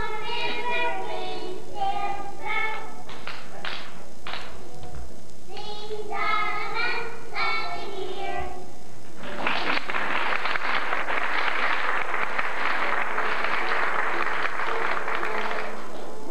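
A small group of young children singing together, then audience applause starting about nine seconds in and stopping near the end.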